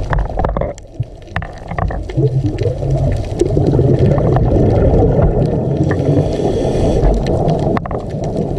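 Scuba diver breathing out through a regulator underwater: a long gurgle of exhaled bubbles from about two seconds in, with scattered short clicks.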